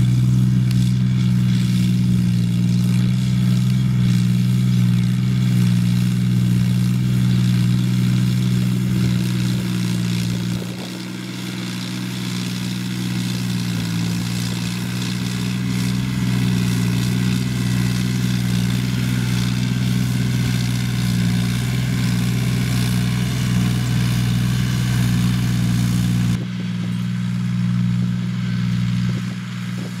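John Deere 5065E tractor's diesel engine running steadily with a low drone while it works a field. The level dips suddenly about a third of the way through and again near the end.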